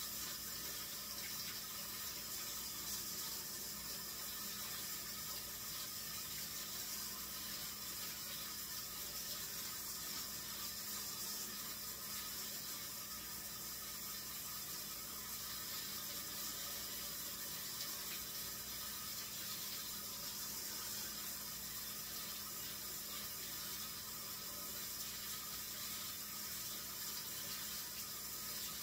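Kitchen faucet running steadily into a sink as raw chicken legs are rinsed under the stream.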